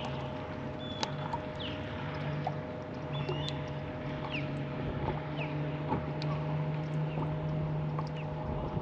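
Electric trolling motor on a bass boat humming steadily, its lower hum growing stronger a few seconds in. Short, falling bird chirps and a few small clicks sound over it.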